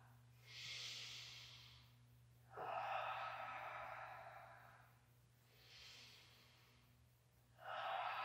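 A woman taking slow, deep breaths, in and out twice, each breath soft and hissy. A low steady hum runs underneath.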